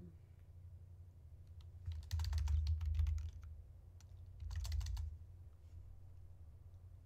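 Typing on a computer keyboard: two short bursts of quick keystrokes, the first about two seconds in and the second near five seconds.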